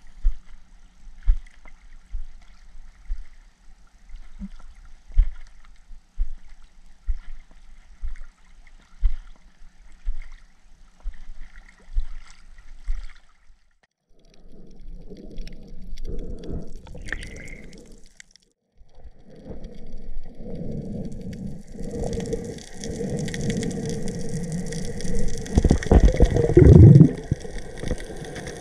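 Water sloshing and gurgling, building up and loudest near the end, after a stretch of soft low thumps about once a second.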